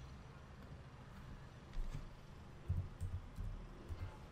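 Computer keyboard keystrokes: a handful of soft, separate taps starting about two seconds in.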